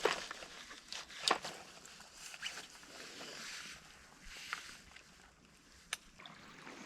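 Faint rustling and handling noises with a few sharp clicks, as of someone moving about with clothing and fishing gear.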